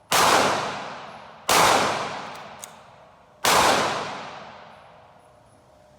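Three 9mm pistol shots from a Glock 19 Gen 5 being fired to sight in its red dot, about a second and a half then two seconds apart. Each sharp crack trails off in a long echo.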